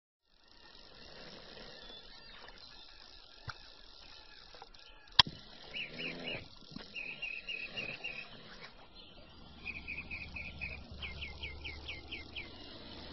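Quiet outdoor lakeside ambience with a small bird chirping in quick runs of short, repeated notes. A single sharp click about five seconds in is the loudest sound.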